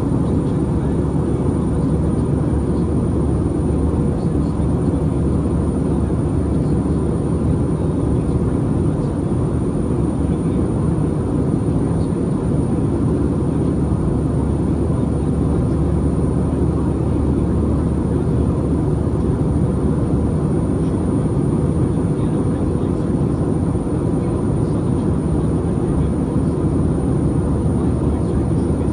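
Steady cabin noise of an Airbus A319 airliner in flight: an even, low rumble of engines and rushing air, heard from inside the cabin.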